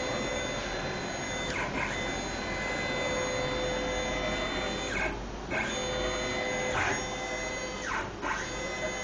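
Mini CNC machine running, its stepper motors giving a steady whine. Three times the whine dips in pitch and climbs back, as an axis slows, reverses and speeds up again.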